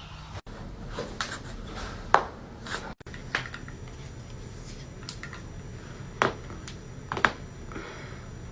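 Joints cracking: a series of sharp, short pops, a few softer ones early on and louder single pops about two seconds in and twice near the end.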